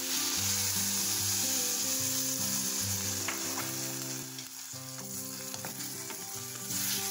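Chayote pieces sizzling in a hot steel pot with a splash of water just added, stirred with a wooden spatula. The sizzle eases a little about four seconds in and picks up again near the end.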